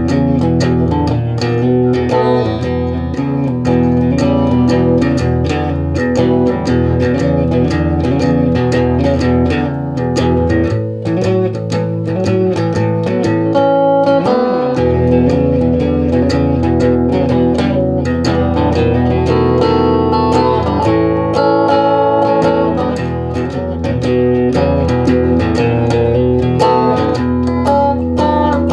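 Guitar music: plucked and strummed guitar notes over a steady bass line.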